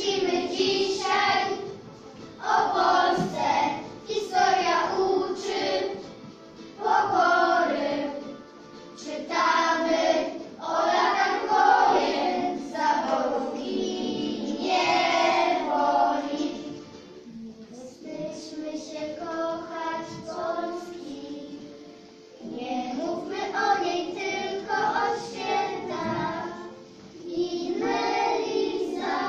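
A group of young children singing a Polish patriotic song together, in phrases with short breaks between them.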